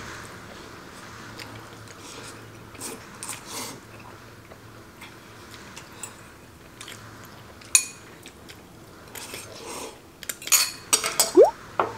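Noodles being slurped and chewed, with metal chopsticks clinking against a metal pot: one sharp clink about eight seconds in and a quick run of clinks near the end.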